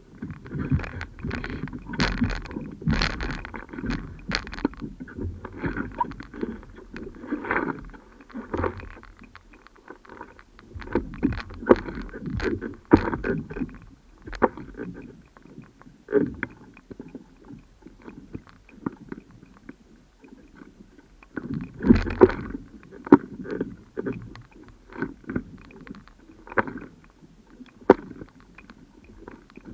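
Water lapping and slapping against a stand-up paddleboard, with irregular knocks and shuffles as someone shifts their hands and knees on its deck, in clusters near the start, in the middle and about three-quarters of the way through.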